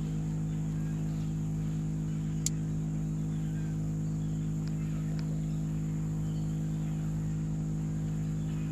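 A boat motor running at a steady speed, a constant low hum that does not change, with one sharp click about two and a half seconds in.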